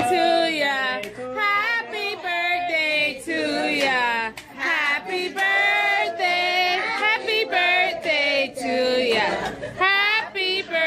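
A group of voices singing a birthday song together, with sustained, wavering sung notes throughout.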